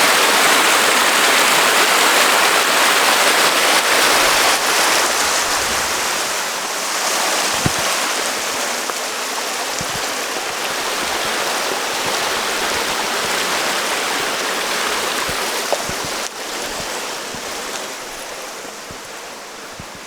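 A mountain stream rushing steadily, a constant loud wash of water that fades gradually over the last few seconds.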